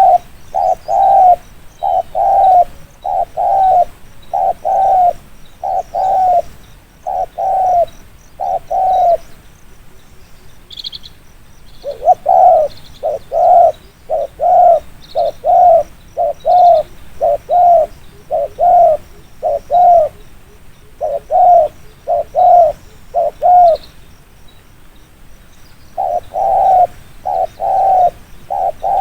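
Spotted dove giving rapid 'thúc gù' coos: fast runs of short, evenly spaced low coos, broken by two pauses of a few seconds. Faint high chirps from a small bird are heard in the middle.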